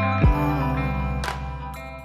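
Background music with a beat, a drum hit about a quarter second in and a cymbal-like hit a second later, fading out at the end.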